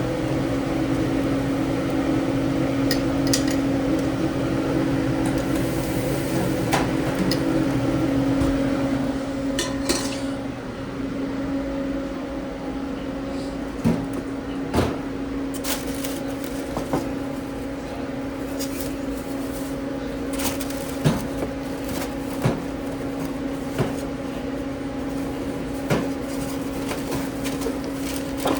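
Steady hum of kitchen equipment, with scattered knocks and clinks of pans and utensils. A lower layer of the hum drops out about twelve seconds in.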